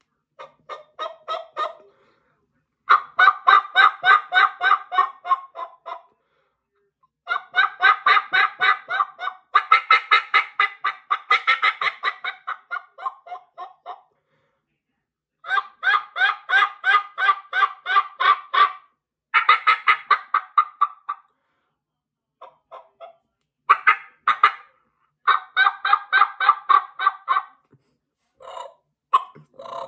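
Hen turkey calling on a homemade diaphragm mouth call whose reed has a cut like a double snake tongue: runs of quick, evenly spaced notes lasting a few seconds each, broken by short pauses.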